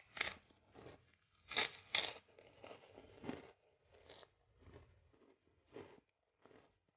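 A person chewing a mouthful of food by hand-fed bites, with sharp crunches, loudest about one and a half to two seconds in, then a run of softer, spaced crunches.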